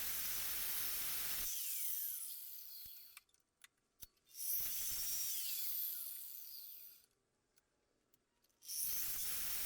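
A power grinder running with a steady hiss, switched off about one and a half seconds in and spinning down with a falling whine. A couple of light clicks follow; it runs up again about four and a half seconds in, winds down the same way, and starts once more near the end.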